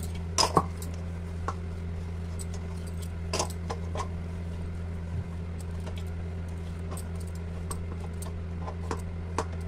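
Dough being kneaded by hand in a stainless-steel bowl: scattered light clinks and taps of bangles and dough against the metal, a second or several apart, over a steady low hum.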